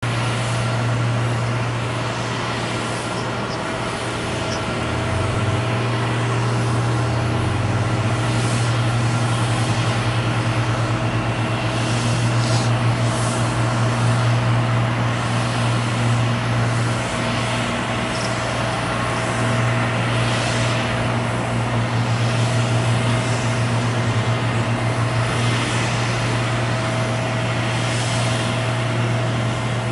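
Airbus A321-200's twin turbofan engines at taxi power: a steady jet whine over a constant low hum, swelling and easing slightly as the airliner rolls along the taxiway.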